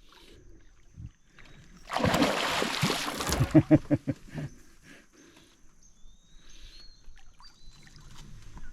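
A loud splash of water lasting about a second and a half, followed by a quick run of shorter splashes. A faint, steady high tone and a few short chirps sound behind it.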